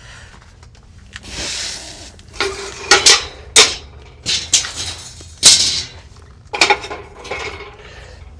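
Kamado grill parts being handled and set in place: a scrape about a second in, then a run of sharp clanks with a short ring, like pots and pans knocking together.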